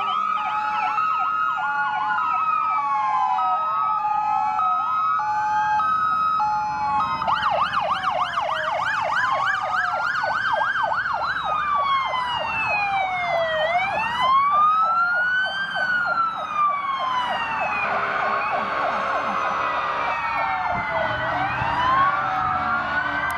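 Several emergency-vehicle electronic sirens sounding at once as the vehicles pass, overlapping slow rising-and-falling wails with fast yelps. A steady two-note hi-lo tone alternates through the first several seconds.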